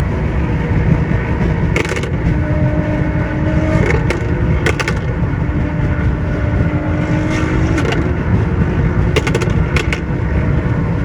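Car driving at a steady speed: low road rumble with a steady engine drone and a few clicks.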